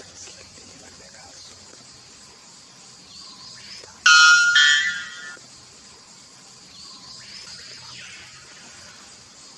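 White bellbird giving one very loud, ringing two-part call about four seconds in, fading over about a second, over a steady high hiss of insects.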